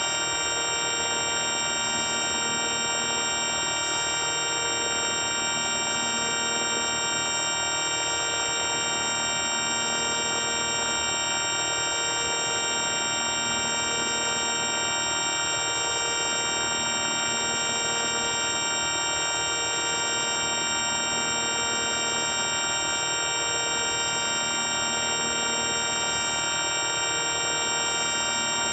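The 4ormulator V1 sound effect: a steady electronic drone of many held tones, its lower part pulsing about every two seconds.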